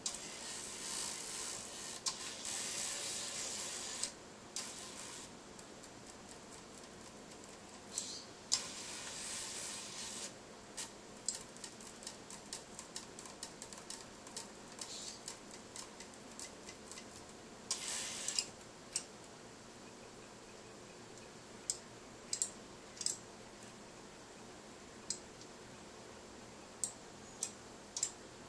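Scorbot robot arm homing: its joint motors run in three hissing bursts of one to four seconds as the axes seek their home positions. Many small sharp clicks are scattered between and after the bursts.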